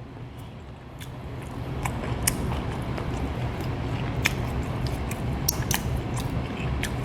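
Close-miked chewing of food: wet mouth clicks and smacks over a low, steady mouth noise that grows louder about a second and a half in.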